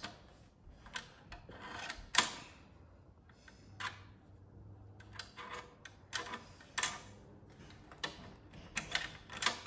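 Scattered small clicks and taps of metal tweezers and fingers handling small parts inside an opened cassette deck's mechanism, with one louder click a little after two seconds and more frequent ones in the second half.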